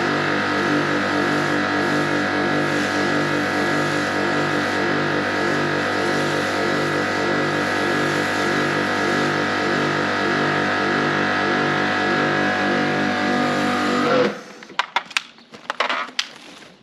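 Pressure washer running steadily with a regular pulsing, its spray hissing over the pavement. About 14 seconds in the sound cuts off abruptly, followed by a few sharp clicks and knocks.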